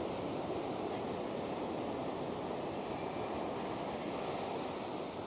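Surf washing onto a sandy beach: a steady, even hiss of breaking waves.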